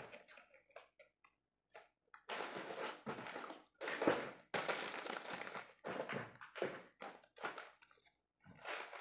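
Plastic wrappers and packaging crinkling and rustling as packaged chocolates and snacks are handled and packed, starting after about two seconds of near quiet, with a few light taps.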